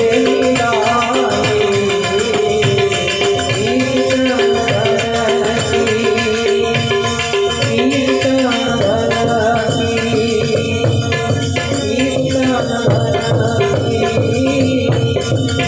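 Instrumental passage of a bhajan: a harmonium plays the melody over continuous hand percussion.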